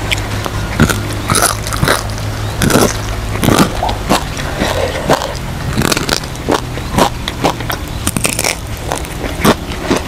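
Close-miked chewing and crunching of quail eaten bones and all: irregular crisp crunches and bites, several a second, over a low steady hum.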